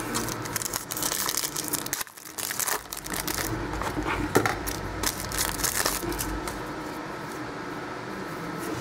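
Foil trading-card pack wrapper crinkling as it is opened and handled, dense crackling for most of the first six seconds, then quieter as the cards are taken out and shuffled.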